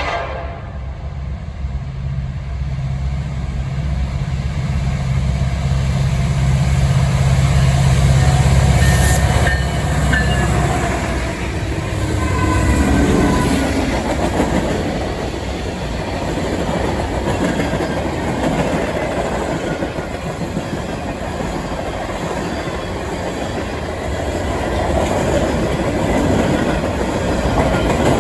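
Norfolk Southern freight's three lead diesel locomotives, an EMD SD70ACe and two GE AC44C6Ms, pass with a deep engine rumble that builds for about eight seconds. From about eleven seconds in, the rumble fades into the steady rolling rush and clickety-clack of the mixed freight cars going by.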